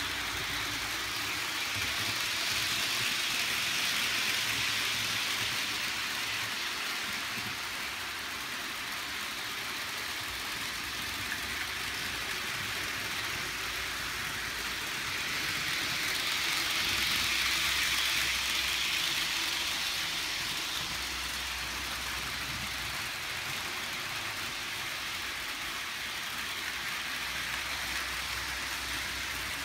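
HO scale model trains running on a multi-loop layout: a steady whirring of small locomotive motors and metal wheels rolling on the track, growing louder twice as trains pass close by.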